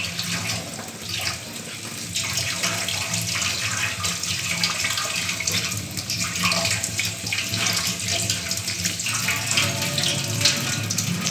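Tap water running steadily through broccoli florets in a perforated steel colander and splashing into a stainless-steel sink, as the florets are rinsed and turned by hand.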